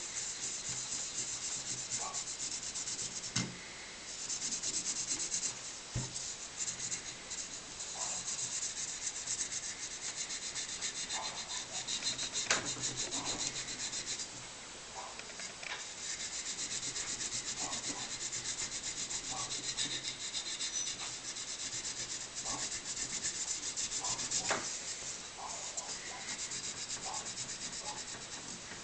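Fast hand scrubbing of the metal body of an old miner's lamp with an abrasive: a continuous scratchy rasp, with short pauses about four seconds in and about halfway through.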